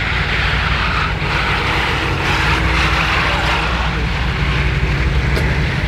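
Mercedes-AMG G 63's twin-turbo V8 running with a steady low rumble as the SUV rolls slowly past, its side-exit exhausts close by, with no revving.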